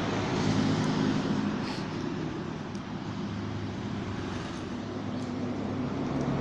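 A steady low motor hum over an even background hiss.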